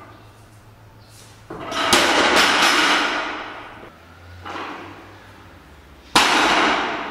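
Barbell loaded with bumper plates hitting the lifting platform about two seconds in, banging and bouncing with a rattle of plates that dies away over about two seconds. A lighter knock follows, then a second sharp bang as the bar lands on the platform near the end.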